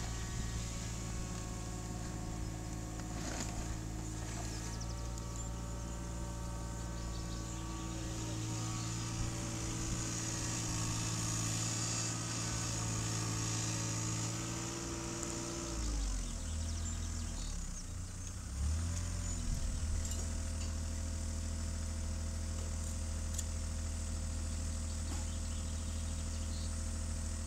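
Mini excavator's diesel engine running steadily while digging. About sixteen seconds in, its pitch drops and wavers for a few seconds under changing load, then settles steady again.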